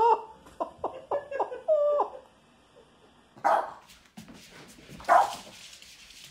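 A person laughing for the first two seconds, then, after a short pause, a small Boston terrier barking twice, single sharp barks about a second and a half apart.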